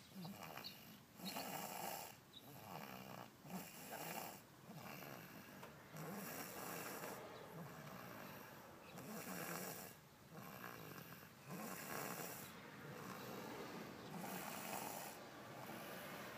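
A person snoring in their sleep: a run of noisy, throaty snores, one breath every couple of seconds.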